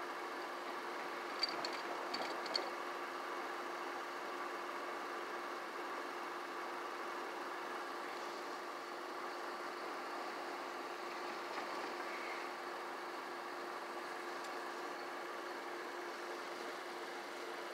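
An engine idling with a steady hum and an even tone, unchanged throughout. A few faint clicks come about two seconds in.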